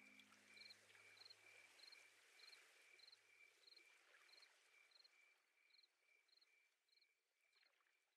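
Faint, steady chirping of a cricket-like insect, one short chirp about every half second, with the last low notes of background music dying away in the first few seconds.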